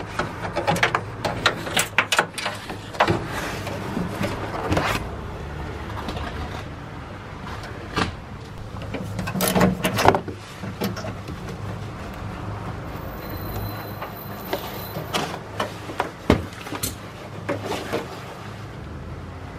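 Scattered clicks, knocks and scrapes of wire being pulled through a car's trunk lid and a small ratchet wrench being worked on a nut at a wiring connection. The handling is loudest around the middle.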